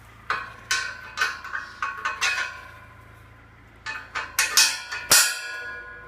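Metal objects clanking together in two bunches of sharp, ringing clanks, the loudest about five seconds in, as things are handled or set down. A low steady hum stops at about the same moment.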